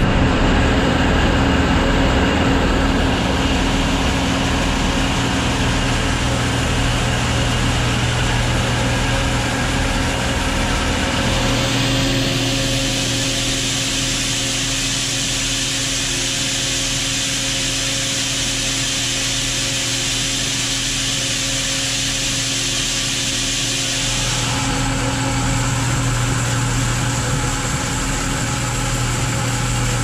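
Tractor engine running steadily while shelled corn is augered into a grain bin. From about 12 to 24 seconds a hiss of corn pouring onto the pile inside the bin is louder and the engine hum fainter.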